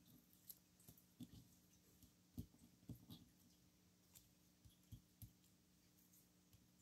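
Near silence with about a dozen faint, irregular light clicks and taps: small die-cut paper flower pieces being picked up and set down on a craft mat.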